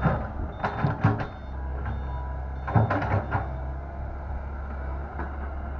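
Komatsu PC120-8 excavator's diesel engine running steadily, with a few short knocks in quick clusters at the start, about a second in and about three seconds in.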